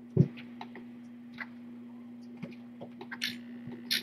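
Kittens playing around a cat tree and scratcher toys: a low thump just after the start, then scattered light taps and clicks over a steady low hum.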